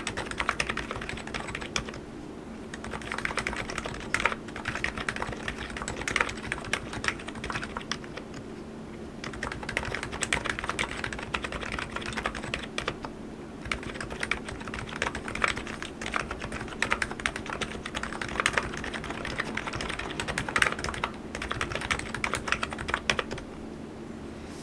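Typing on an ABKO KN02C electrostatic capacitive keyboard: a steady run of fast keystrokes with brief pauses about two, eight and thirteen seconds in.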